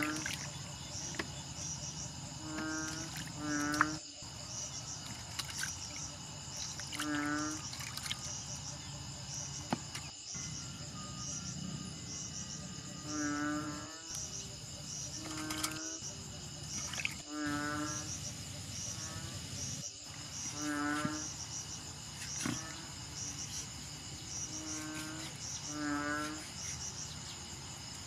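Insects chirring steadily in a pulsing high trill, with short pitched animal calls repeating every few seconds, often in pairs, and a few sharp knocks.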